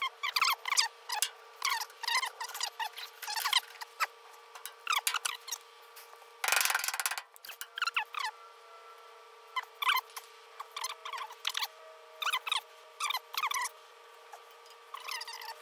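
The rear spring plate of a VW Karmann Ghia squeaking in its rubber torsion-bar bushing as it is pushed and worked by hand: a long, irregular run of short, high squeaks. A brief scraping rustle comes about six and a half seconds in.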